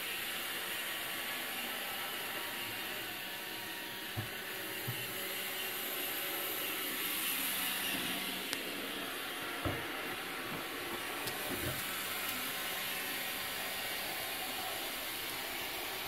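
Roomba robot vacuum running with a steady hiss, with a few soft thumps.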